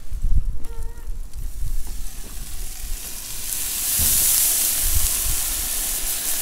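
Food sizzling as it fries in hot oil in a cast-iron kazan. The sizzle swells to a loud hiss about three seconds in, with a few low thumps along the way.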